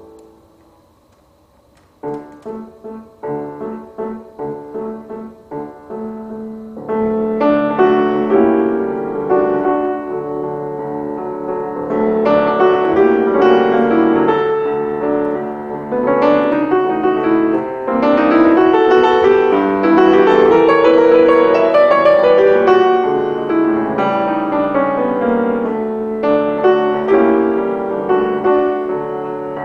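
Piano playing. After a brief near-silent pause it starts with a few seconds of separate, repeated notes, then turns fuller and louder with chords and moving lines about seven seconds in.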